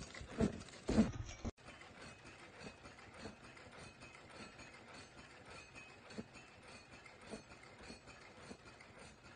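Automatic face mask making machine running. A few loud, rhythmic knocks from its pressing heads come in the first second and a half, then after a sudden cut a quieter, steady mechanical clatter with occasional faint clicks.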